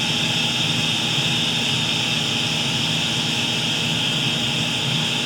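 Vacuum pump running steadily as it pulls a vacuum on a steel 55-gallon drum, a continuous even whine with a low hum beneath it.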